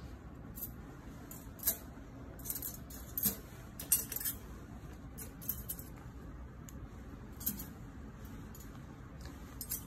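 Stainless steel surgical instruments clinking lightly against each other and the wire mesh tray as they are picked up and laid down, in scattered irregular clinks.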